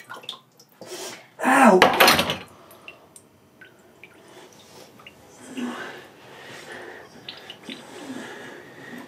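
A man's short, loud cry of pain about a second and a half in, as he cuts his hand on a kitchen knife while washing up, running into a clatter in the stainless-steel sink. A few clinks of crockery come before it, and fainter groans follow later.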